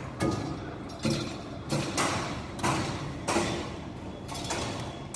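Steady hammering from a building site: sharp blows struck evenly about one and a half times a second, each with a short ringing tail.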